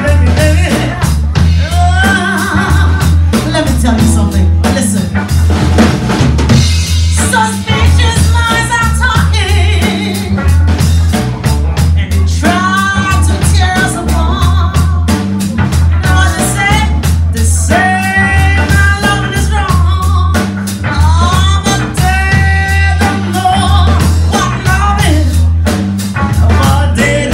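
Live band playing a song: a woman sings lead over electric bass, drum kit and electric guitar, loud and continuous.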